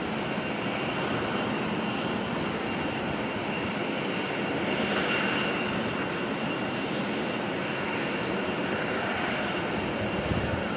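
Aircraft engine running steadily in the distance: an even rushing drone with a faint high whine, swelling slightly about halfway through.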